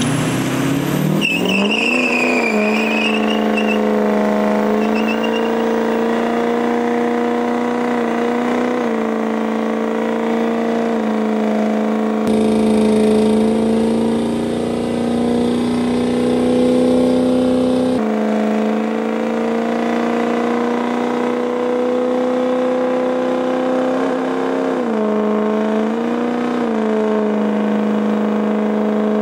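Lifted Ford Super Duty pickup's diesel engine revving up and held at high revs through a burnout, the rear tyres spinning on the pavement. A wavering tyre squeal sounds a second or two in, and the revs dip and climb again a few times, most plainly near the end.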